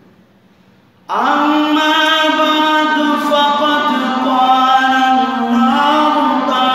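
A man chanting into a microphone in one long, drawn-out melodic phrase that starts about a second in. The room's echo trails after it.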